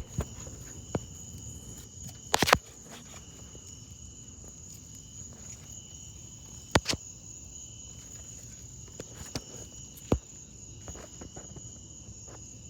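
Steady high-pitched insect-like chorus, with a few sharp clicks and knocks from the work. The loudest is a short clatter about two and a half seconds in.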